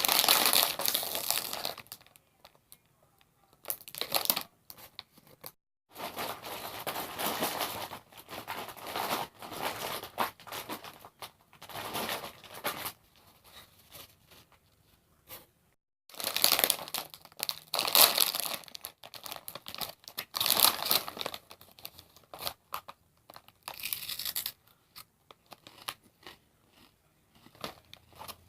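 Crinkly plastic snack bag of Hot Fries being handled and torn open, in several bouts of crackling crinkling with quiet gaps between them.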